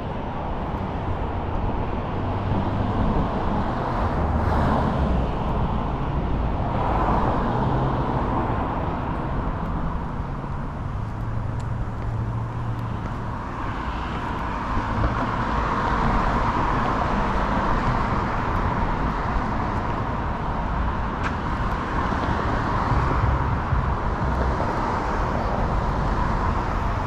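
Road traffic: cars passing one after another, their tyre and engine noise swelling and fading several times over a continuous hum of traffic.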